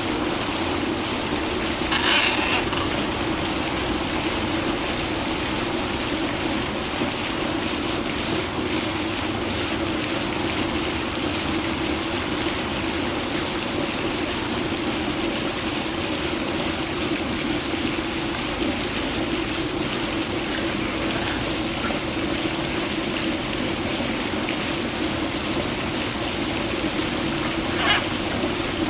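Steady rushing noise of running water, with two short parrot squawks, one about two seconds in and one near the end.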